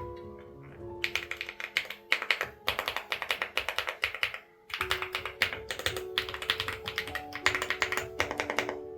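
Fast typing on an EPOMaker Galaxy 100 mechanical keyboard with linear switches: bursts of rapid key clicks, with a short pause about four seconds in, over background music.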